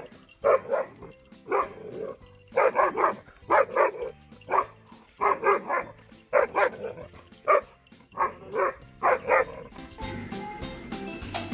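A long-coat German Shepherd barking repeatedly while lunging on its leash, in quick runs of two or three barks with short gaps between.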